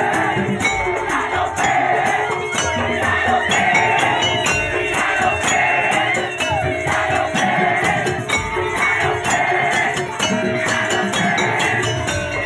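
Live band music with rapid, busy percussion and jingling tambourine-like shakers under a sustained melody line.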